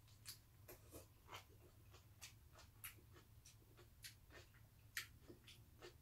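Faint eating sounds: chewing and lip smacks, heard as small irregular clicks a few times a second over a low steady room hum.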